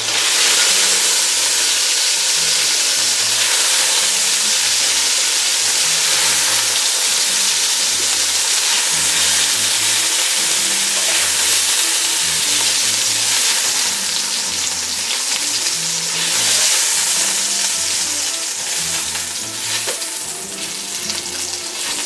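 Diced chicken pieces sizzling in hot vegetable oil in a pot: a dense, steady crackling hiss that eases a little near the end.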